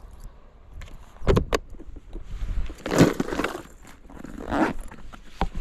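Handling noise from changing lures at an open plastic tackle box: a couple of sharp clicks about a second in, then longer scraping and rustling around the middle and again near the end, with a click just before the end. Low wind rumble on the microphone underneath.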